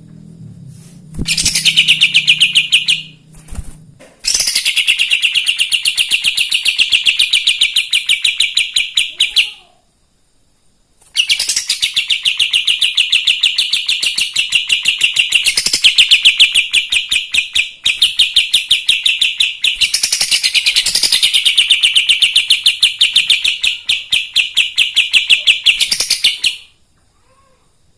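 Kapas tembak songbird singing in full voice: long bouts of rapid, evenly repeated sharp chirps, broken by two short pauses.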